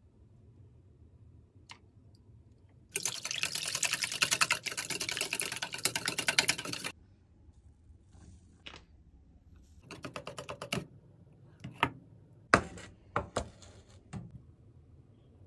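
Wire whisk beating batter in a stainless steel bowl: a fast, loud rattle of clicks against the metal for about four seconds, then a shorter burst of whisking later. A few sharp knocks follow near the end.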